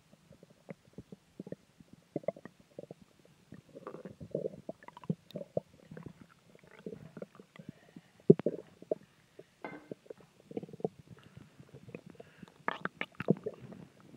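A person's stomach growling and gurgling in an irregular run of squelches, pops and bubbly rumbles, with louder gurgles about eight seconds in and again near the end.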